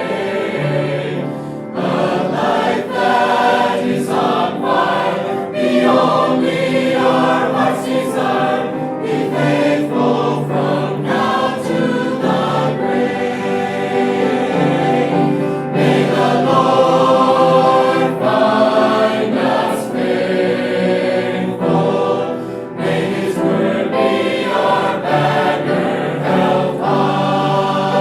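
Background music: a choir singing a gospel song.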